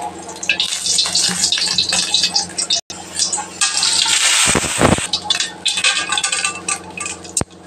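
Oil heating in a steel kadai, crackling and sizzling, over a steady low hum. About four and a half seconds in, a handful of split dal tipped into the hot oil gives a louder burst of sizzle.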